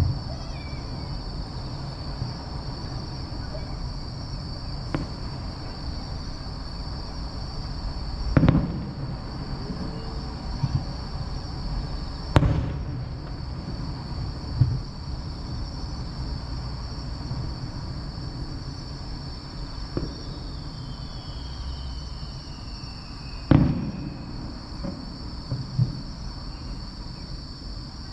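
Aerial fireworks bursting: a few widely spaced booms, the loudest about eight, twelve and twenty-three seconds in, each trailing off in an echo, with smaller pops between.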